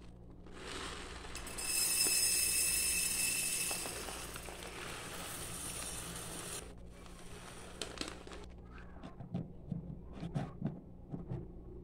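Dry rice poured from a plastic bag into a glass jar: a hiss of falling grains that starts about a second and a half in, is strongest for the first couple of seconds and then tapers off. Near the end come a few light clicks and knocks as the screw lid is set on the jar and turned.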